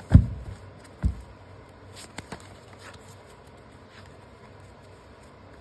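A thick deck of tarot cards handled over a tabletop: two dull thumps about a second apart, then a few faint clicks of cards.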